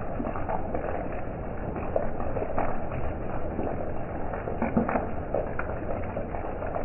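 Steady rain falling, with irregular taps of individual raindrops hitting a nearby surface several times a second.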